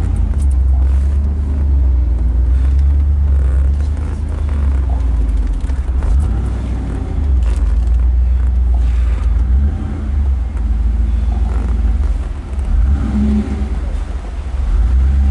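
1991 Chevrolet Camaro Z28's V8 engine running at low revs as the car is manoeuvred in reverse, a steady deep rumble heard from inside the cabin.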